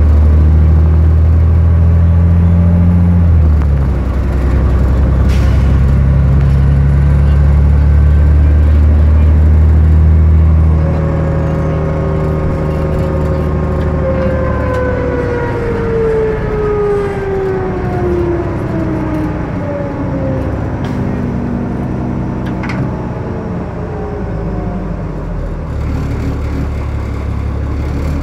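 Cummins ISL diesel engine of a New Flyer D40i city bus heard from inside the cabin, running under load with a deep steady drone. About eleven seconds in the engine drops back and a whine falls steadily in pitch as the bus slows.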